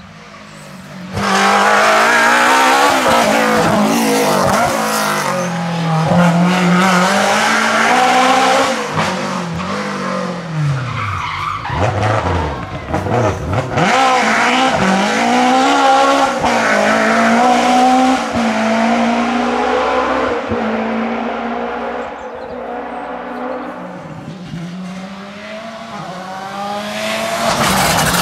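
Rally car engine at full throttle, its pitch climbing and dropping again and again through gear changes as it runs the stage. Near the end a second rally car, a Volkswagen Polo R5, comes up loudly.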